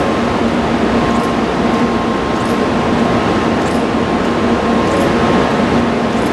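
Steady hum and hiss of a Shinkansen train standing at the platform with its air-conditioning and onboard equipment running, with a faint high tick about once a second.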